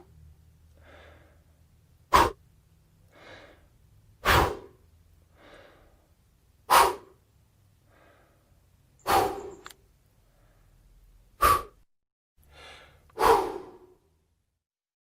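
A person blowing out sharp puffs of air, six times at a steady pace of one about every two and a half seconds, with softer breaths in between.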